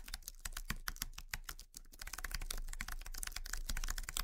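Computer keyboard typing: a fast run of keystroke clicks, with a brief pause a little under two seconds in.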